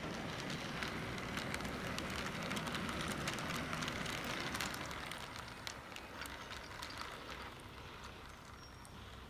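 H0-scale model train, a diesel locomotive hauling freight wagons, running past on the track: a motor and wheel rumble with many small clicks from the wheels on the rail. It is loudest about three to four seconds in as the locomotive passes, then fades as the wagons roll by.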